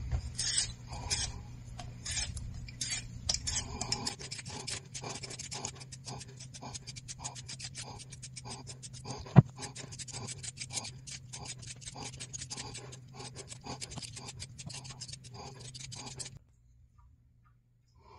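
Vegetable peeler scraping the skin off a potato in quick, repeated strokes, with one sharp click about nine seconds in; the scraping stops about sixteen seconds in.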